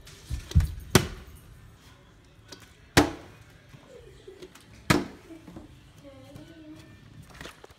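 A few sharp knocks and thuds on hard surfaces, the loudest about three seconds in and again near five seconds, with a low rustle from the phone being handled.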